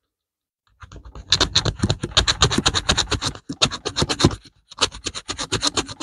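Small metal file rasping in quick back-and-forth strokes across the edge of a counterfeit silver coin, about nine strokes a second, filing into the surface to expose the base metal. It starts about a second in and breaks off briefly twice.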